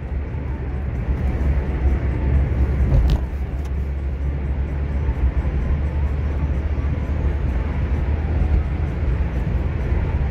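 Car driving along a city road: a steady low rumble of engine and road noise.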